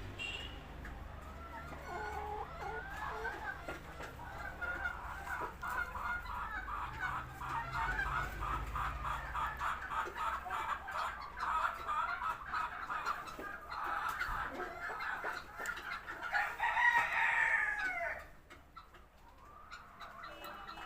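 Buff Cochin chickens calling in a quick, steady run of clucks, about four a second, followed near the end by a single louder, drawn-out call that rises and then falls.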